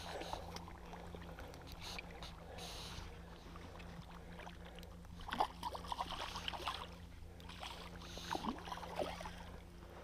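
Irregular water splashing and sloshing in shallow water, in short clusters, with fabric rubbing close to the microphone.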